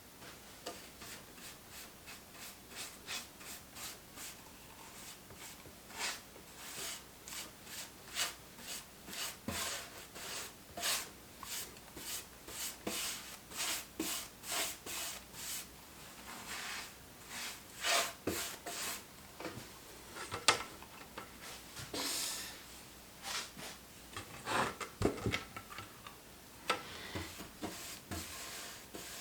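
Paint being stroked onto a plywood cabinet: an applicator rubbing back and forth across the wood in short, irregular strokes, about two a second with pauses. A single sharp knock about twenty seconds in.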